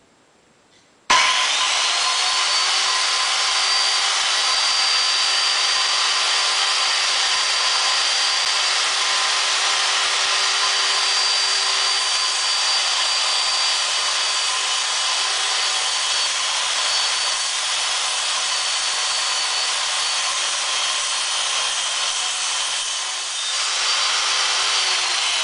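Corded circular saw cutting a quarter-inch Lexan polycarbonate sheet. The motor starts suddenly about a second in, its whine rising to full speed, and it runs steadily through the long cut. Near the end the sound dips and swells as the blade clears the sheet, then the whine begins to fall as the saw winds down.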